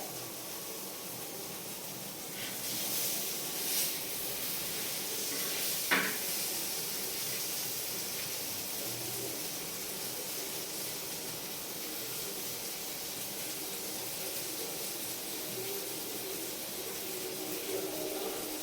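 Fish frying in hot oil in a pan: a steady sizzle, swelling briefly about three seconds in, with a single sharp clack about six seconds in.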